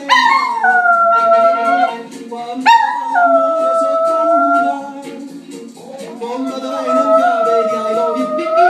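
Chihuahua–papillon mix dog howling along to music: three long, held howls, each opening with a quick rise in pitch, with the music playing underneath.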